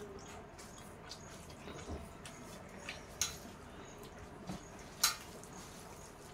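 Eating with the hands from steel plates: rice and fish curry squished between the fingers, with scattered small clicks and ticks, the sharpest about three and five seconds in.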